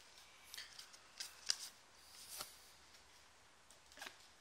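Basketball trading cards being handled and slid against each other in a stack: a few faint, short snaps and rustles, the sharpest about one and a half seconds in.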